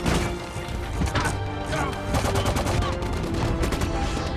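Movie battle sound mix: repeated gunfire and impacts over a dramatic orchestral score.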